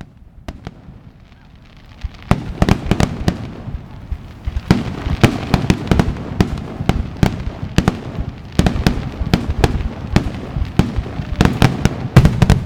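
Fireworks going off: quiet for about two seconds, then a dense, continuous run of sharp bangs and crackles.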